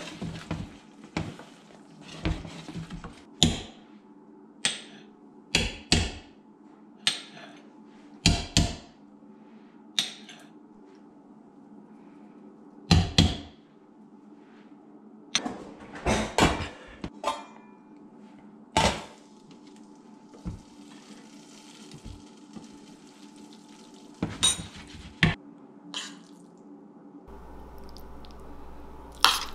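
Wooden spoon stirring risotto in a stainless steel pan, knocking and scraping against the pan in irregular clicks over a steady low hum. Near the end a metal spoon clinks once on a plate.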